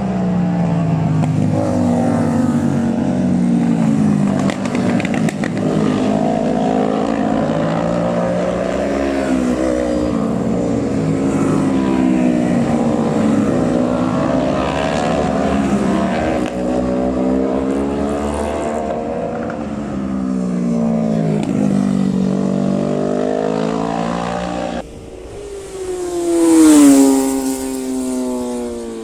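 Several racing motorcycles at high revs, their engine notes overlapping and rising and falling through gear changes as a group passes. Near the end a single bike passes close and loud, its note dropping as it goes by.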